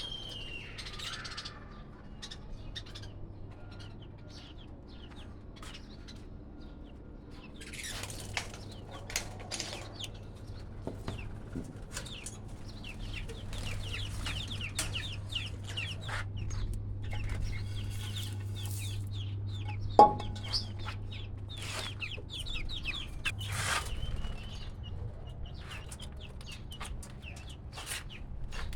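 Caged budgies and lovebirds chirping and chattering in many short, high calls over a steady low hum, with one sharp click about twenty seconds in.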